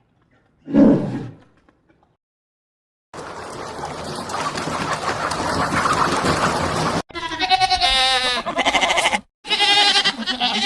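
A run of separate animal calls, each cut off abruptly. A short low call comes about a second in, then a few seconds of steady hiss-like noise, then two bouts of quavering, bleat-like calls near the end.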